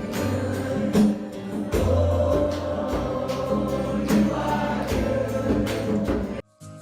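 Gospel music with a choir singing over a steady beat and bass line; it cuts off abruptly near the end.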